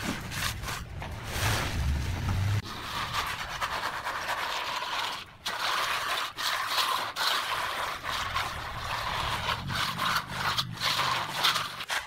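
Wet concrete being scraped and levelled by hand with a trowel and a long straightedge: a steady gritty scraping, broken by a few short pauses.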